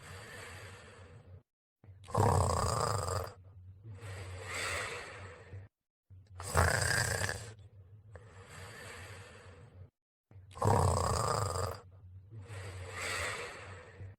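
Snoring in an even cycle of about four seconds, three times over. Each cycle is a loud snore, then a quieter, softer one, then a brief dead silence, and every cycle is nearly identical, as if one snore is repeated on a loop.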